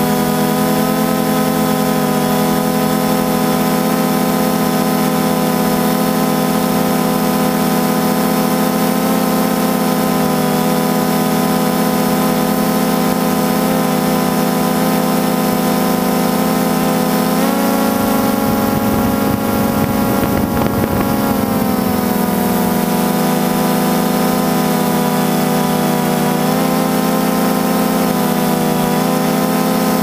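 DJI Phantom 2 quadcopter's motors and propellers droning steadily, heard from the camera on board. The pitch steps up a little past halfway and drops back a few seconds later as the rotor speed changes.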